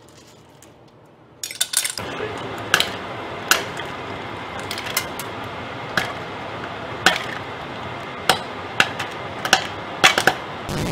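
Popcorn kernels popping inside an aluminium beer can heated on a gas burner: sharp single pops at irregular intervals over a steady hiss, starting about two seconds in.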